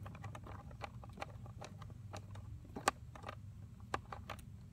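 Scattered small clicks and scrapes of fingers turning the base of a plastic screw-on wire terminal, with a sharper click about three seconds in, over a steady low hum.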